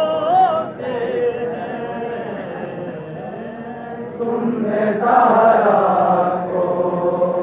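Men's voices chanting a noha, a Shia lament, in unison: one voice with wavering pitch at the start, then a softer mix of voices, and a louder massed chorus from about four and a half seconds in.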